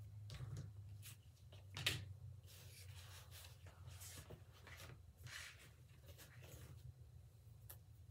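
Faint rustling and light taps of cardboard and paper sheets being shifted and handled on a table, with a few soft clicks, over a steady low hum.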